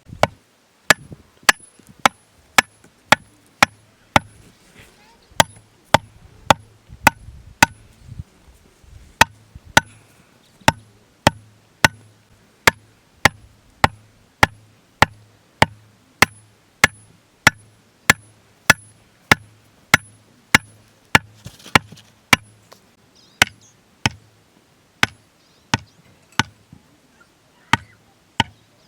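Steady chopping: sharp single blows at roughly two a second, with a few brief pauses.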